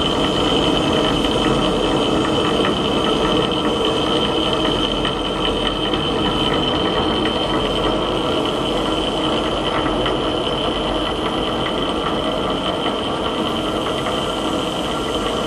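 Steady machinery running: a continuous dense hum with a high, whining tone.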